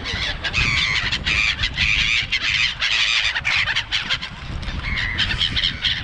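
A flock of black-headed gulls calling, many harsh squealing cries overlapping without pause, as the birds crowd in for hand-fed snacks. A low rumble runs underneath.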